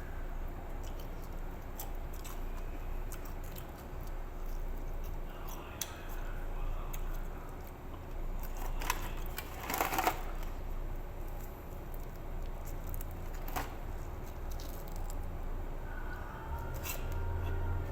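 Eating sounds from a person eating spicy chicken: chewing, biting and handling the food, with scattered small clicks and a louder crinkling burst about ten seconds in, over a steady low hum.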